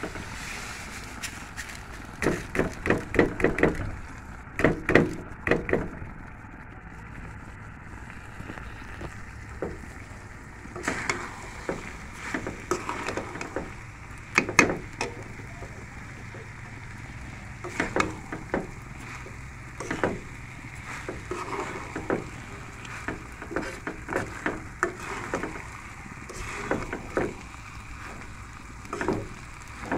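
Uncooked rice poured into a metal karahi of spiced meat, then stirred with a metal spoon: irregular bursts of scraping and clinking strokes against the pan over a faint steady sizzle.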